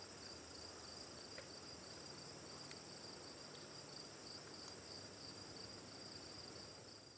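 Faint insect chorus: a steady high trill, with a second, lower trill pulsing in a fast even rhythm, and a few faint ticks.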